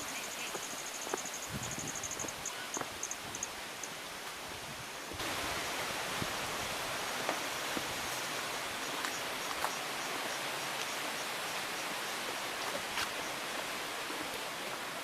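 Waterfall water rushing steadily, jumping louder about five seconds in. A high, rapid trill fades away over the first few seconds.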